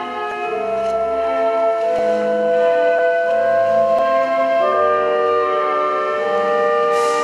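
Slow instrumental music of long held notes that change slowly.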